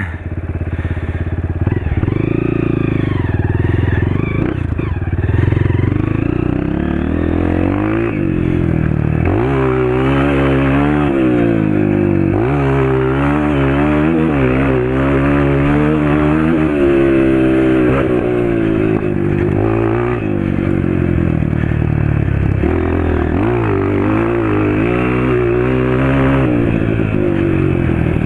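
Honda CRF 230 dirt bike's single-cylinder four-stroke engine through an FMF Powercore 2 exhaust, revving hard. Its pitch climbs and drops again and again as it accelerates, eases off and shifts gears.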